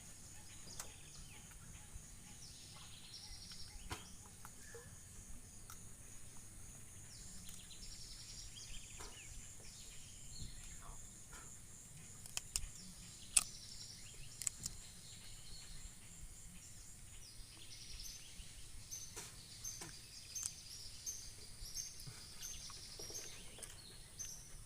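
Unidentified animal calls: series of short, high chirps repeated several times a second over a steady high-pitched hum, with scattered sharp clicks.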